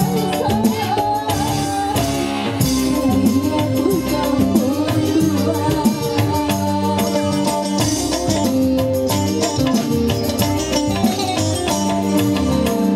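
Live dangdut band music amplified through a PA: keyboard and electric guitar over a steady percussion rhythm, with a woman singing.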